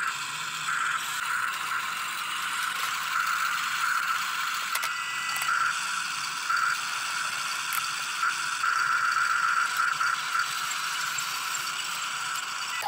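Huina toy RC excavator's small electric motors and plastic gearboxes whirring and rattling as it is worked, a steady high whir that swells and eases with a few brief clicks.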